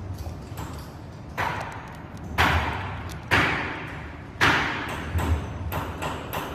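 Repeated sharp knocks and clacks, about five loud ones and a few lighter ones, each ringing briefly, over a steady low hum: hard parts or tools being handled and set down during a battery and controller replacement.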